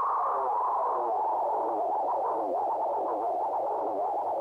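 Runaway feedback from a tape echo built out of a 1970s Teac cassette deck: a dense mass of overlapping chirping repeats. Its pitch sinks over the first two and a half seconds, then climbs again as the capstan speed knob is turned.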